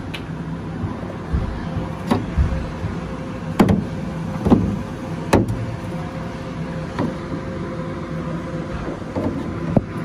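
Scattered sharp clicks and knocks of plastic and metal parts being handled inside a van's rear door panel, over a steady hum.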